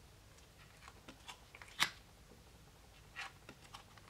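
Tarot cards being handled: lifted off one pile and laid onto another, giving a few soft card clicks and slides. The sharpest click comes about two seconds in and a smaller one a little after three seconds.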